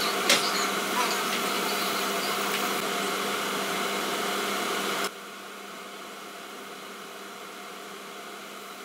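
Oil sizzling steadily in a karahi as handesh deep-fry on a gas hob, over a steady hum, with a light click near the start. About five seconds in the sound drops suddenly to a quieter steady hiss and hum.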